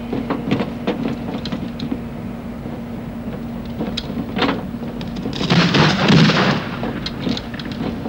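Film soundtrack action effects: scattered sharp cracks, then a loud rumbling blast about five seconds in that lasts about a second.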